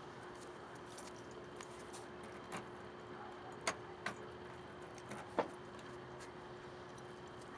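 A few short, sharp clicks and knocks over a faint steady hum.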